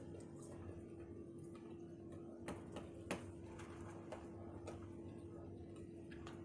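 Quiet room tone with a steady low hum and a few faint, short clicks and taps, the sharpest about three seconds in.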